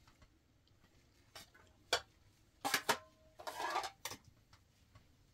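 A metal spoon knocking and scraping against a stainless steel cooking pot as rice is dished out, with sharp clinks of plates: a few separate knocks, the loudest a little past halfway, then a short scrape with a faint ring.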